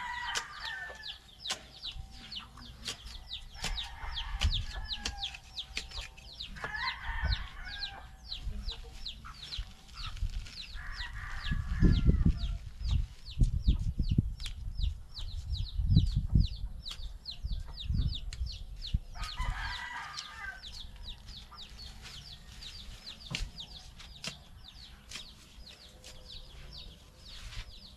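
Chickens clucking and calling, about five separate calls spread through, over a fast, steady run of high chirps. Low thumps come between the calls around the middle.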